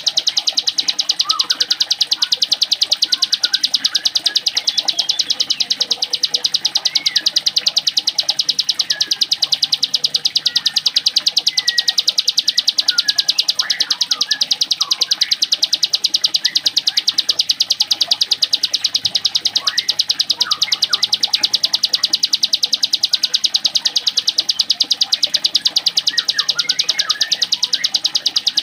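Cigun (ciblek gunung, a mountain prinia) singing its 'mesin jahit' sewing-machine song: a very fast, even, high rattle held without a break, with short higher chirps and slurred notes scattered over it.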